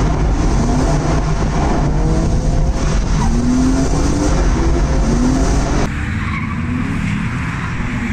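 Drift car engine revving hard in repeated rising pulls while the tyres skid and squeal. About six seconds in, the sound cuts abruptly to a quieter, duller take.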